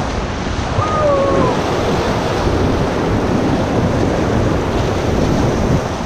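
Whitewater rapids rushing and churning around an inflatable raft, with wind buffeting the microphone. A short falling call cuts through about a second in.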